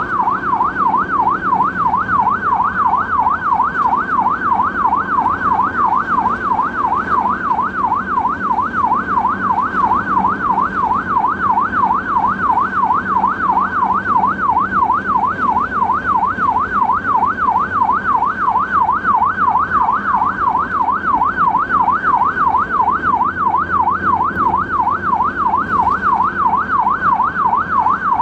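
Ambulance siren sounding continuously in a fast up-and-down yelp, about three sweeps a second, with a low vehicle hum underneath.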